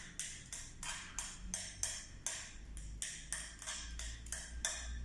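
A spoon scraping and swishing through shaving foam in a glass dish, in quick repeated strokes about three a second, as the foam is spread evenly to leave no gaps.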